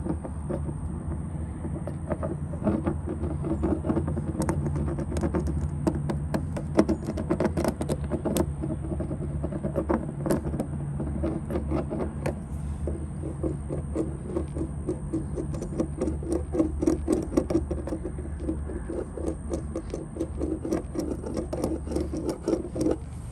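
Rapid, irregular scraping and rattling of a tool worked against a plastic bumper panel while the plastic weld is smoothed, over a steady low hum. It cuts off suddenly at the end.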